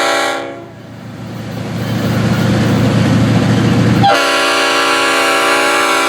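Locomotive horn sounding a steady chord, overloading a camcorder's built-in microphone. About half a second in it breaks off into a rising low rumble of a train for about three seconds, then the horn chord comes back suddenly.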